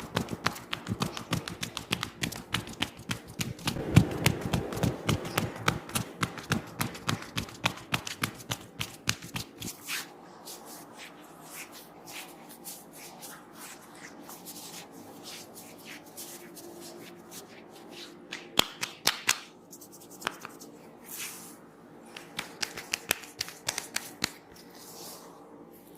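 Hands working on a head during a head massage: rapid tapping and patting, many strikes a second, for about ten seconds. Then quieter rubbing with a few short runs of taps.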